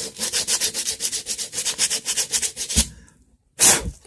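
Sandpaper rubbed by hand over a carved birch walking stick: quick back-and-forth scraping strokes, about six a second, that stop just before three seconds in, followed by one louder stroke near the end.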